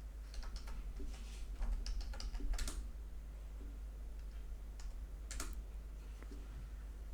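Computer keyboard and mouse clicks: a quick run of clicks in the first three seconds, then two single clicks about five seconds in, over a low steady hum.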